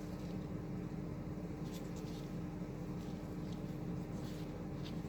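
Teflon thread-seal tape being wound onto a brass valve's threads: faint scratchy rubbing with a few light crinkles, over a steady low hum.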